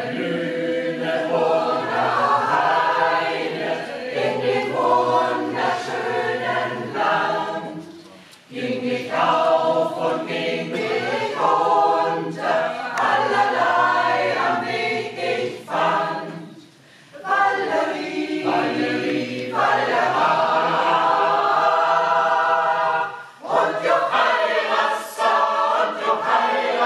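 Mixed choir of women's and men's voices singing together, in phrases broken by a few short pauses.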